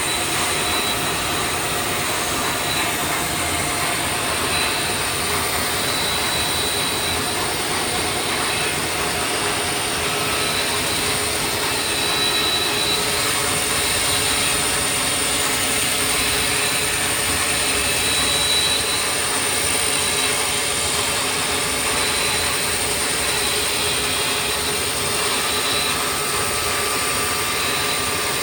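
CNC machine running steadily in a mould shop, a continuous machine noise with a high, steady whine over it.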